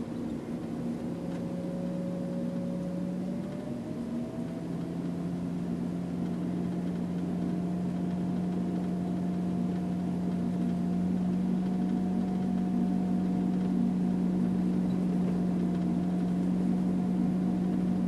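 Car engine and tyre noise while driving: a steady low hum with a higher whine that climbs a little about four seconds in and then holds.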